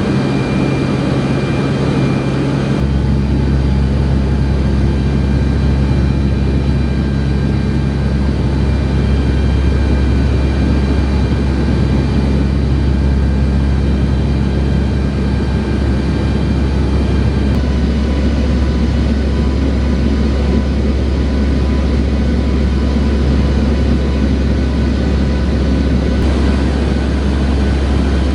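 Aircraft engines droning steadily: a loud low hum with a few steady tones above it. The balance of the drone shifts abruptly a few times.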